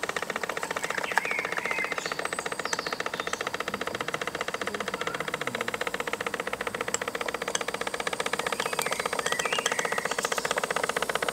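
A small 1930s model steam engine in an RC boat, running steadily with a rapid, even mechanical clatter.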